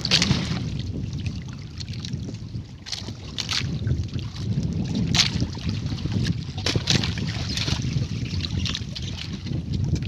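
Wind buffeting the microphone over open sea, with water splashing and sloshing against the hull and outriggers of a small outrigger boat several times.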